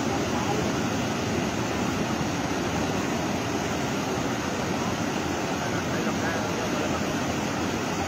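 Heavy torrential rain: a steady, dense rushing hiss at an even level.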